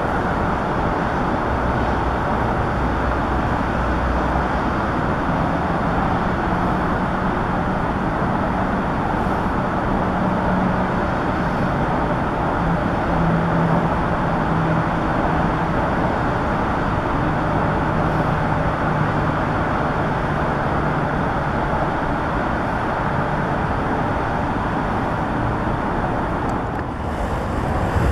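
Steady outdoor rumble of distant motor traffic, with a faint low engine hum that comes and goes.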